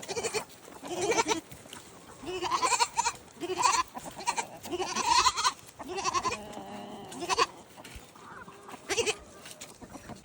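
Goats bleating again and again, about nine calls, some overlapping, including one longer, lower call after about six seconds: hungry goats clamouring to be fed.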